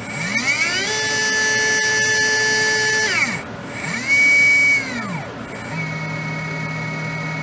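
Fantom Helix RS 17.5T brushless motor run by a Hobbywing Tunalyzer's automatic test: a whine rises in pitch, holds for a couple of seconds and falls away. A second, shorter rise and fall follows about four seconds in, and a low steady hum sets in near the end. The motor is very quiet, which the owner takes as the sign of a very well balanced motor.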